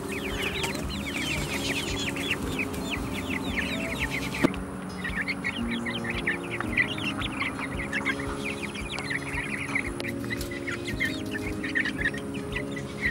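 A flock of young Cornish Cross broiler chicks peeping continuously: many short, falling chirps overlapping. Soft background music with sustained low notes plays beneath, and a single sharp click comes about four seconds in.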